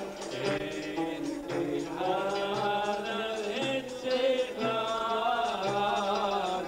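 A man singing a Moroccan Jewish piyyut into a microphone, accompanied by ouds and a hand drum keeping a steady beat.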